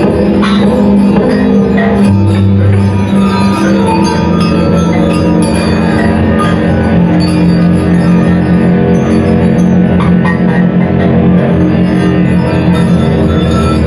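Live music from a trio: dense layers of sustained tones, with a deep low note sounding for about a second near the start.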